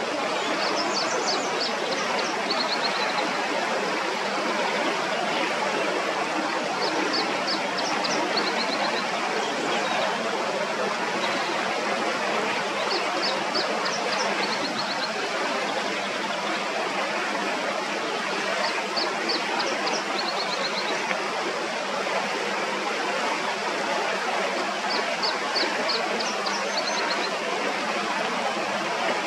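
Steady rush of river water running over rocks. Over it, a small songbird repeats a short high song phrase five times, about every six seconds: a few quick notes, then a brief trill.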